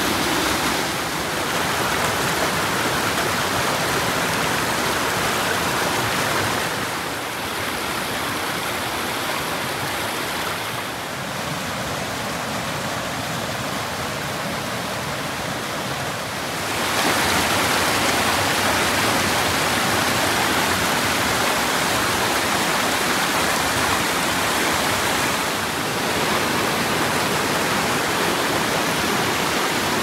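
Waterfall rushing steadily, a dense hiss of falling water. The rush drops somewhat about seven seconds in and comes back louder about ten seconds later.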